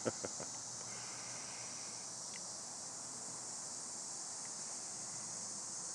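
Steady high-pitched insect chorus, a continuous shrill hum with a few soft clicks in the first half-second.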